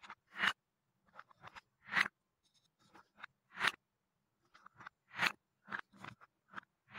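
Painted wooden balls clacking as a wooden spoon scoops them from wooden cups and drops them into a wooden bowl of other balls. There are four louder knocks about a second and a half apart, as each ball lands, with light taps and scrapes of the spoon between them.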